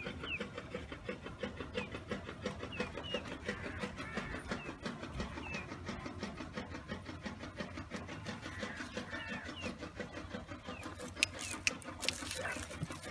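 A small engine running steadily with an even chugging beat about five times a second, with short bird chirps over it and a few sharp knocks near the end.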